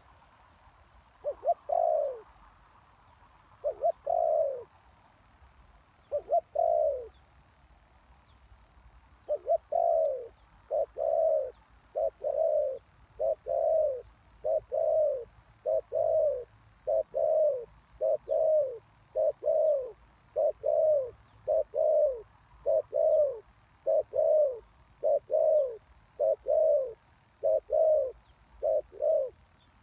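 Spotted dove cooing: low, hollow coo notes, a few spaced ones at first, then a steady run of repeated coos from about nine seconds in.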